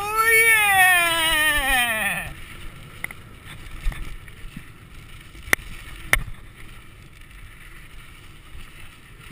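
A mountain biker's long shouted whoop, its pitch rising a little and then sliding down, ending about two seconds in. After it, steady wind and tyre noise on the dirt trail, with two sharp knocks a little past halfway.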